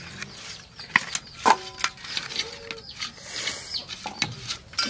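Vegetables being cut on a boti, a curved floor-mounted blade: a string of sharp clicks and taps, the loudest about a second and a half in, with a brief ringing after it. Chickens cluck in the background.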